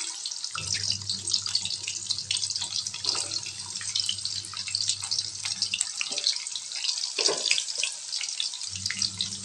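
Flattened jengkol (dogfruit) slices deep-frying in hot oil in a wok: a continuous crackling sizzle of many fine pops.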